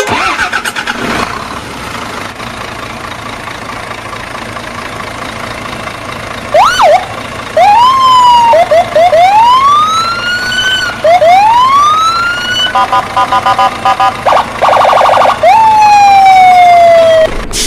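Siren-like electronic sound effects: after several seconds of steady noise, a run of clean tones that swoop up and down in pitch, then a fast warbling beep, and finally one long falling tone.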